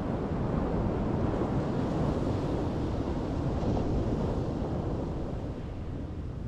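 Ocean surf washing onto a sandy beach, swelling and then easing off, with wind rumbling on the microphone.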